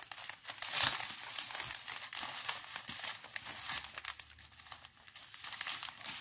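A strip of small clear plastic zip bags filled with round diamond-painting drills, crinkling as it is handled and turned, with many small crackles. Loudest about a second in, quieter for a stretch near the end.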